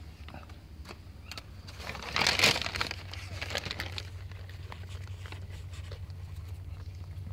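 Paper and cardboard bedding rustling and crinkling as a kitten is set down in its nest among the litter. There is one louder rustle about two seconds in, then scattered small clicks, over a steady low hum.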